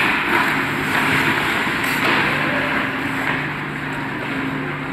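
Ice hockey skates scraping and gliding on the ice, an even hiss, over a steady low hum.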